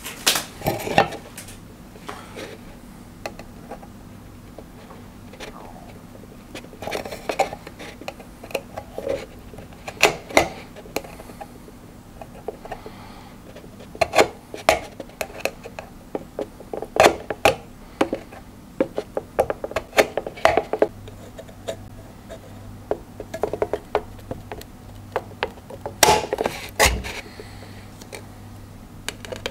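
A pointed awl punching pilot holes through the thin steel wall of a tin can: sharp, irregular metallic clicks and crunches, some coming in quick runs.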